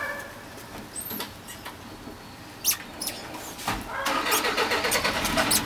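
A shoe-repair workshop machine is switched on about two-thirds of the way in, and its motor runs up with a squeal. Scattered clicks of handling come before it.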